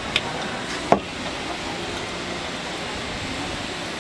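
Steady noise at a street-food crepe griddle. Two light clicks come near the start, and a single sharp knock of a utensil comes about a second in.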